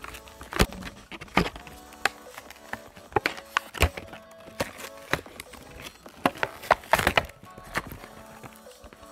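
A small cardboard box and its clear plastic insert being torn open and handled: a run of irregular sharp cracks, snaps and crinkles, over quiet background music.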